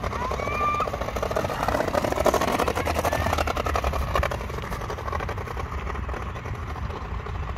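Kick scooter wheels rolling over a paving-block path: a rough, fast rattle as the wheels cross the joints, strongest in the first half and easing toward the end, over a low rumble.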